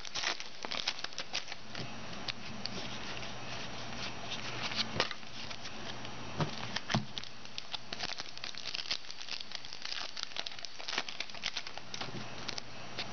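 Foil trading-card pack wrappers being torn open and crinkled, with cards being shuffled in the hands: a dense, irregular crackling throughout, with a few louder snaps about five and seven seconds in.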